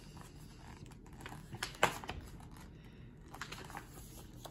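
Hands handling a hardcover picture book, opening its fold-out paper envelope and turning a page: a run of small paper clicks and taps, with one sharper tap a little under two seconds in.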